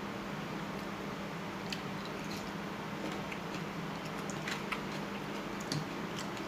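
A person eating noodle soup: soft chewing and wet squishing with scattered small clicks, over a steady low hum.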